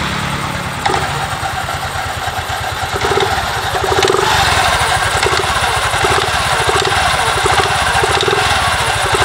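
Yamaha Fino 125's single-cylinder four-stroke engine idling steadily with the CVT cover off, belt and pulleys exposed. There is a click about a second in, and from about three seconds in a whir that swells and fades a little more than once a second.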